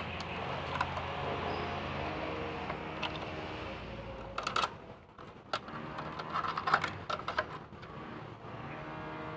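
Scattered light clicks and knocks of plastic and metal parts being handled while working inside an air conditioner's indoor unit, over a steady low hum that stops about four and a half seconds in.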